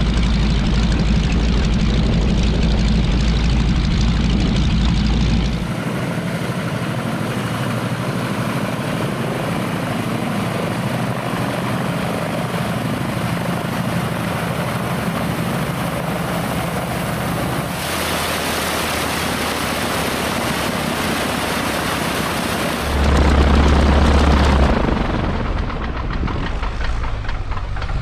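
T6 Harvard's nine-cylinder Pratt & Whitney Wasp radial engine and propeller running steadily at low power. The sound changes abruptly several times, dropping its deep low hum about six seconds in and returning louder for a couple of seconds near the end.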